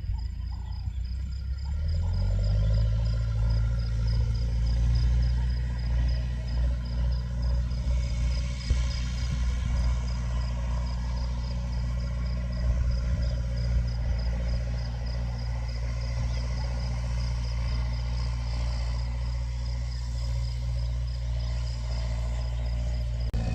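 Massey Ferguson 290 tractor's four-cylinder diesel engine running steadily while ploughing; the engine note rises about two seconds in and then holds. A faint, fast, even high ticking runs over it.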